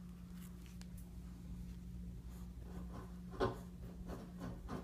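White paint marker tip dabbing and stroking on a paper sticker label: soft, short scratchy strokes, with one louder tap about three and a half seconds in, over a steady low hum.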